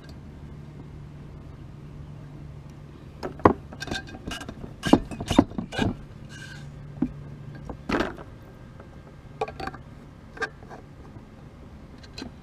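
Sharp clicks and knocks of an insulated flask being handled: the cup-cap set back on and screwed down, a scattered run of taps over several seconds, loudest about three and a half seconds in and twice around five seconds in. A steady low hum runs underneath.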